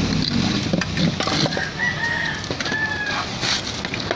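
A rooster crows once, one long call of about a second and a half. Sharp metallic clicks of hand tools working on an engine's clutch assembly come before and after it.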